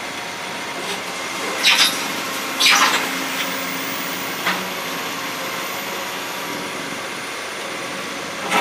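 Excavator's diesel engine running steadily, with three short hisses about one and a half, two and a half and four and a half seconds in.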